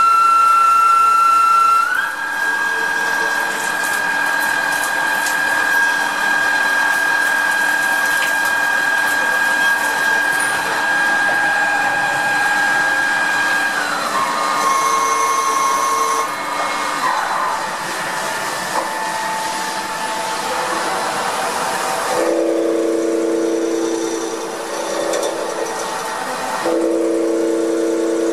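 CXF-W40 CNC turning-milling lathe machining a spinning workpiece under coolant spray: a loud steady high whine from the spindle and tool drives over a spray hiss, the pitch stepping as the speed changes, a shift down near the middle and a rising whine after it. About two-thirds of the way in a lower-pitched whine takes over, broken off briefly near the end.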